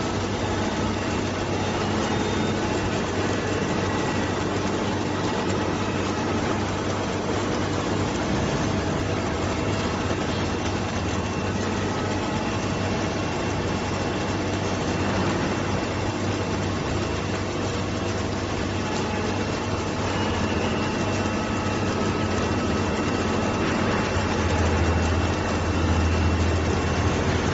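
Submerged-arc welding machine running along the seam of a tapered steel lamp pole: a steady mechanical noise over a low electrical hum. The hum swells about 24 seconds in.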